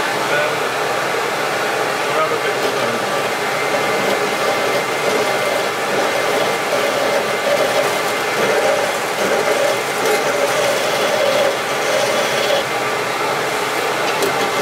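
CamVac CGV336-4 dust extractor running on both motors: a steady rush of air drawn in through the 2.5-inch posable hose. Under it, a lathe turns a pen blank while a gouge cuts it.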